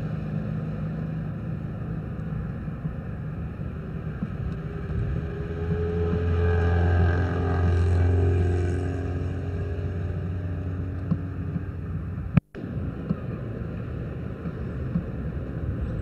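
Steady outdoor rumble with a motor vehicle going by, its engine hum swelling to a peak between about six and nine seconds in and then fading. A sharp click with a brief dropout comes about twelve seconds in.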